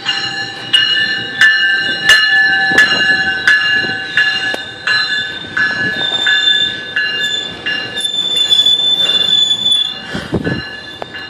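GO Transit bilevel coaches rolling slowly along the platform, their steel wheels and brakes giving off a loud, wavering high-pitched squeal, with a sharp click roughly every 0.7 seconds as the wheels pass over rail joints.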